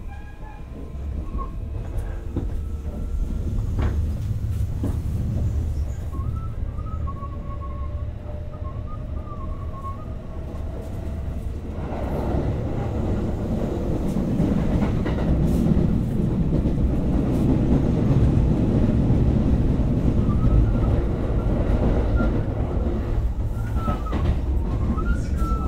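Kintetsu 5800 series electric train running on the rail, heard from inside the car: a steady low rumble with occasional rail-joint clicks, growing louder from about halfway through. A faint rising whine comes early.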